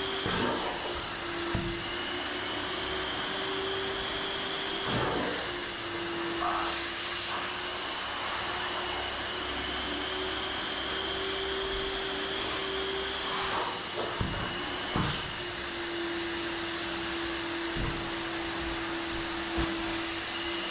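An electric motor running steadily with a constant whine over an airy hiss, broken by a few short knocks scattered through the stretch.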